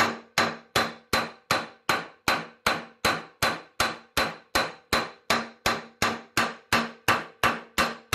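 Panel hammer planishing a weld bead on thin steel sheet over a steel bench, an even run of about three ringing metallic strikes a second, flattening a MIG weld that has been softened by annealing with a TIG pass.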